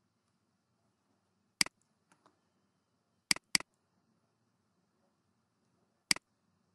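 Computer mouse button clicks: a single click, then a double click a couple of seconds later, then another single click. Each is a short, sharp tick.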